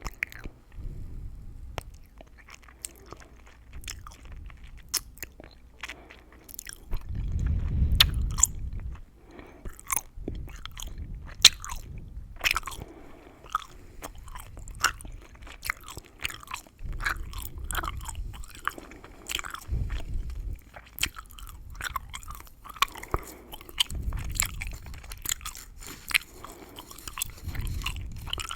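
Close-miked gum chewing: a dense, irregular stream of wet mouth clicks and sharp gum crackles. A few low, muffled swells come in between, the strongest about a third of the way in.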